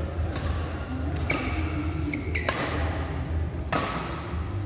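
Four sharp knocks, about one every second and a bit, each ringing on in a large echoing hall, over a steady low hum.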